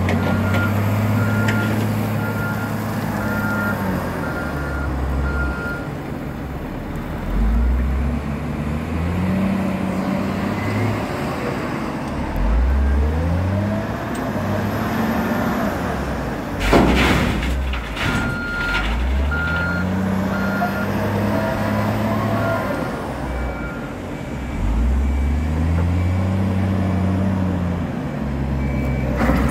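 CAT 966H wheel loader's diesel engine revving up and settling back in repeated loading cycles, with its reversing alarm beeping in two stretches while it backs up. About halfway through comes a brief loud rushing noise.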